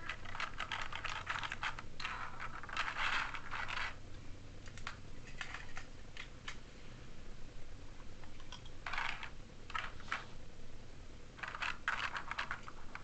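Hard plastic parts of a build-your-own sonic screwdriver toy clicking and clattering as they are handled. The clicks come in several quick bunches with short pauses between.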